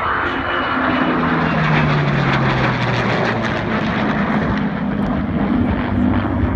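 F-22 Raptor and P-51 Mustang flying past together in formation: loud, steady jet and engine noise, with a low tone that falls in pitch from about a second in as they pass.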